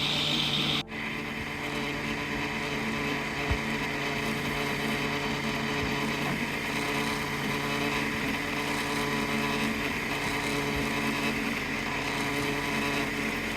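Bambu Lab A1 3D printer running: a steady mechanical hum of its motors and fans with several held tones. The sound changes abruptly about a second in.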